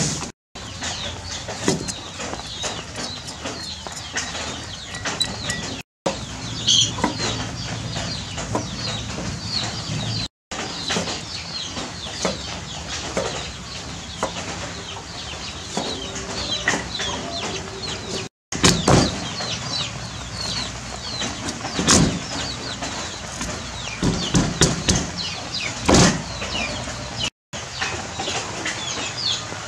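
Steel cleaver chopping vegetables on a wooden chopping block, with sharp knocks, the loudest a little past halfway and near the end. Chickens cluck and chirp in the background throughout.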